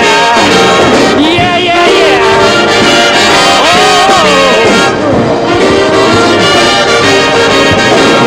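Loud band music led by brass, playing an upbeat instrumental with sliding, bending notes.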